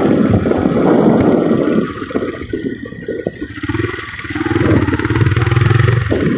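Motorcycle ride: wind rushing over the microphone for about the first two seconds, then a steady engine hum comes through more clearly in the last couple of seconds.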